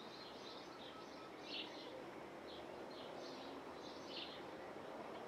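Small birds chirping in short, repeated high bursts over a faint, steady background rumble.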